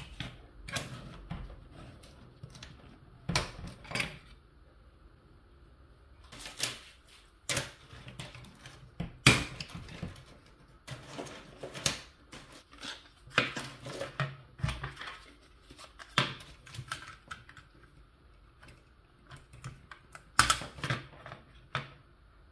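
Plastic toy track pieces clicking and knocking as they are handled and snapped together on a wooden table, in irregular clicks about every second or so with quieter rustling between.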